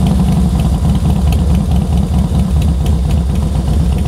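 A 2005 Harley-Davidson Fat Boy's carbureted Twin Cam 88 V-twin idling through Vance and Hines Straight Shot exhaust, a steady pulsing idle. It is running on a little choke after a cool start.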